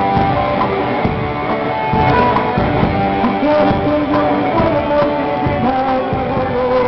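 A rock band playing live through a PA sound system: guitar-led rock music with a steady beat.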